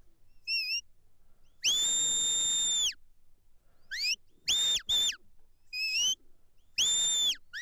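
Sheepdog handler's whistle commands to a working border collie driving sheep. A short warbling note comes first, then a long held note. Several quick rising and clipped notes follow, and another long held whistle comes near the end.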